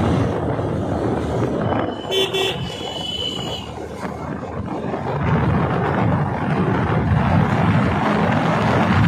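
Riding noise from a motorcycle on the move: wind rushing over the microphone along with the engine running. About two seconds in a vehicle horn toots briefly. The rushing dips for a couple of seconds, then builds again.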